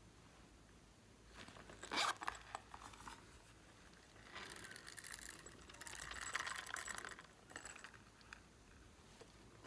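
A shell-shaped case being handled and worked open in the hands. There are a few sharp clicks about two seconds in, then a rasping scrape lasting about three seconds, from about four seconds in.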